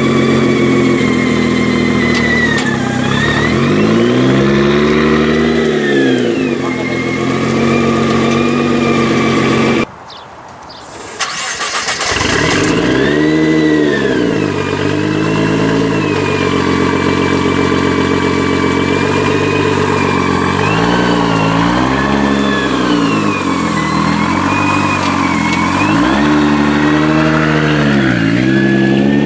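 Tuned Nissan GT-R R35's twin-turbo 3.8-litre V6, built to about 1000 hp, idling and blipped through several rising-and-falling revs. About ten seconds in the engine note drops away, then fires up again a second later and settles back to idle between blips.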